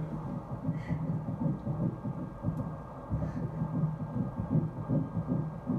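Ultrasound machine's Doppler audio of an early embryo's heartbeat: fast, regular pulses at about 160 beats a minute. The doctor calls the rhythm regular and normal.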